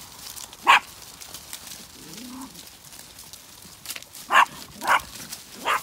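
Small dog yapping among the sheep: a short sharp bark about a second in, then three more in quick succession near the end.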